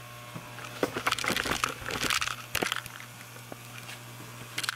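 Crinkling, rustling handling noise with scattered clicks for about two seconds, then a short crackle near the end, over a steady low hum.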